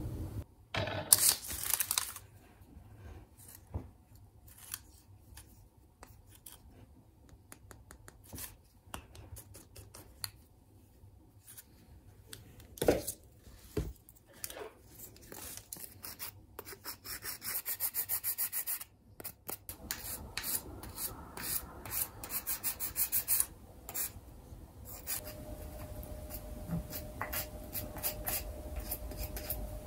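Sandpaper rubbing over dried air-dry clay, in short scraping strokes with scattered taps and clicks of handling; a quick run of rapid strokes comes a little past the middle, and softer, steadier rubbing follows to the end.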